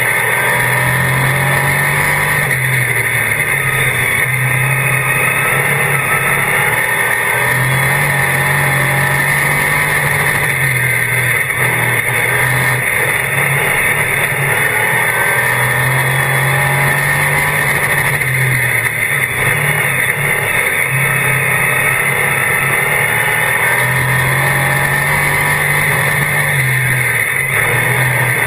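Dirt-track Sportsman modified race car's V8 engine heard from inside the car at race pace, its pitch climbing and dropping every few seconds as the throttle opens on the straights and lifts into the corners, over a constant loud rush of noise.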